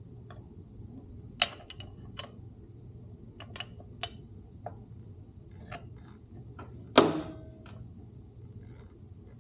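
Scattered metallic clicks and clinks of hand tools and small steel parts being handled on a motorcycle's shift linkage, with one louder metal clank about seven seconds in that rings briefly.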